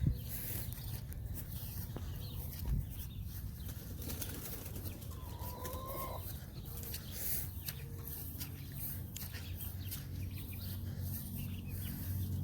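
Rustling and handling noise with a steady low rumble and two thumps, and one short call from farm poultry about five seconds in.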